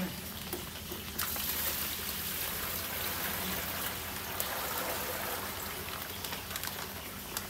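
Water pouring out of a large plastic fish-shipping bag into a plastic tub as the bag is emptied, a steady rush starting about a second in, with a few crackles of the bag.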